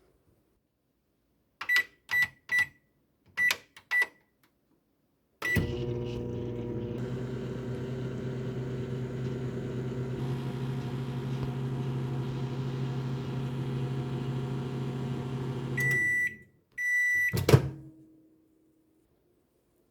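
Microwave oven being set and run: five short keypad beeps, a start beep, then the oven running with a steady hum for about ten seconds. Two longer beeps sound when it finishes, followed by a clunk.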